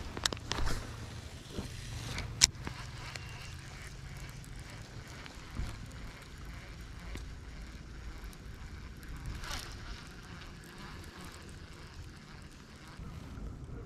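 Low, steady wind rumble on the microphone, with a few short clicks and handling knocks in the first few seconds, the sharpest about two and a half seconds in, and a couple of softer ones later.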